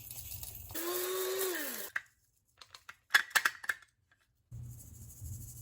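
Electric blade coffee grinder run in one short burst of about a second, whirring and then spinning down in pitch, regrinding the coarse pieces caught in the sieve. A few sharp clicks and knocks of handling follow.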